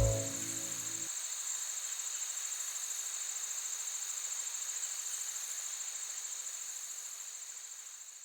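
Insects chirring steadily in a high, finely pulsing trill, which fades out near the end. The last of a music track dies away in the first second.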